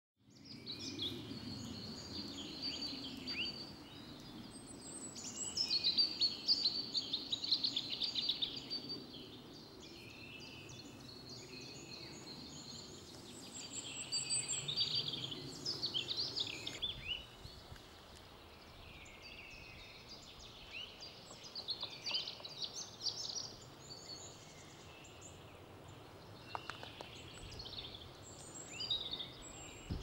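Small songbirds singing and chirping, several at once, over a low steady background rumble that fades about halfway through.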